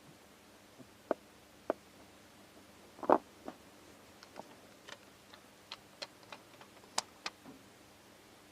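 Irregular light clicks and taps of fingers handling a screen protector on a smartwatch, about a dozen sharp ticks, the loudest about three seconds in and a quicker cluster in the second half.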